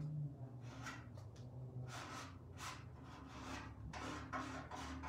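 Short scraping strokes of a paint applicator working chalk paint through a silk-screen stencil on a metal bucket, about two a second, over a steady low hum.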